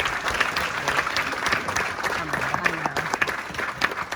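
A crowd applauding, with a voice or two heard among the clapping.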